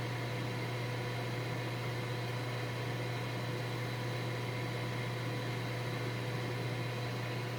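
Ninja Foodi indoor grill's fan running with a steady, even electric hum and faint whine while the lid is closed.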